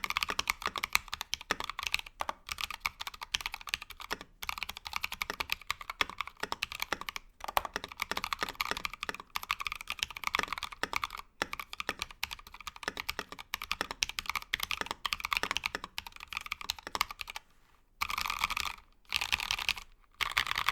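Typing on a mechanical keyboard with stock Tecsee Ice Candy switches in a brass plate under mStone cherry keycaps: a steady run of key clacks. Near the end it breaks into three short bursts of very rapid keypresses with brief gaps between them.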